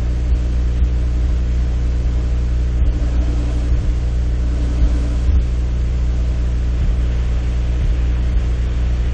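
A steady low hum with even overtones that holds unchanged throughout.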